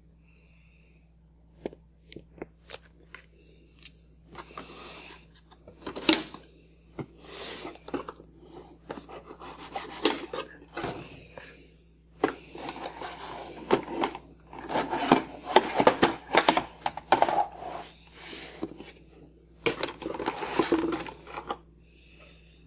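Cardboard toy box and clear plastic blister packaging being pulled open by hand: irregular clicks, scrapes and crinkling, busiest in the middle.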